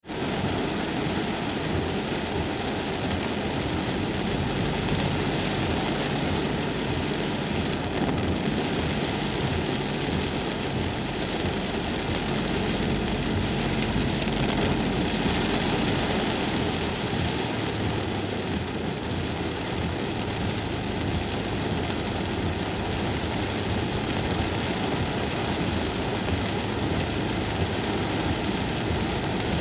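Heavy rain beating on a car's roof and windscreen, heard from inside the moving car, with the engine and tyres running under it. It makes a steady, even noise.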